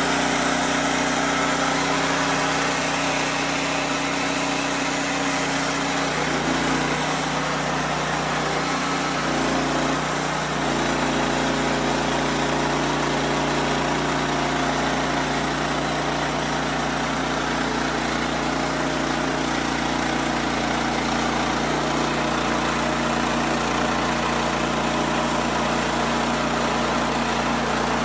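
Wood-Mizer LX55 band sawmill running steadily as its band blade cuts through a large white oak log. The engine note dips and wavers briefly about seven to ten seconds in, then holds steady again.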